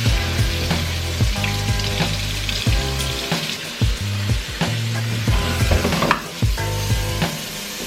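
Background music with a bass line and a steady beat, under a continuous hiss of running water splashing.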